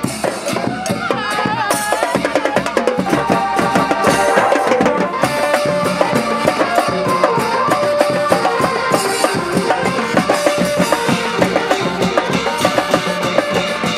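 Thai street brass band (trae wong) playing: trumpets and trombone hold notes over a fast, steady beat of drums and cymbals.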